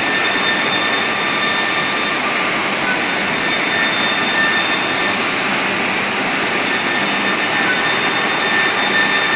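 Edge banding machine running: a steady loud whir of its motors with a thin constant whine. A short higher-pitched rush comes about every three and a half seconds.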